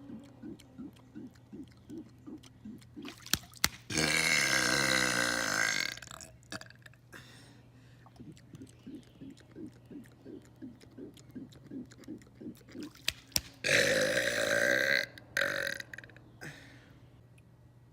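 A man burping: two long, loud burps of about two seconds each, the second followed by a shorter one. Faint low pulsing, about three a second, runs between them.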